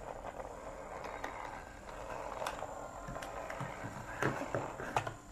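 Small yellow DC gear motor turning a 3D-printed plastic model V-twin engine's gear train and valve train: a quiet steady whir with light plastic clicking and a few louder clacks near the end.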